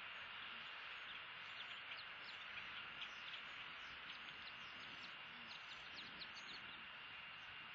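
Faint outdoor ambience at a bald eagle nest: a steady hiss with a thin steady high tone, overlaid by many quick, high, downward-sliding bird chirps.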